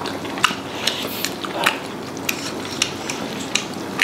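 Chopsticks clicking and scraping against a pot while food is stirred and picked out of a hotpot: a string of short, sharp, irregular clicks.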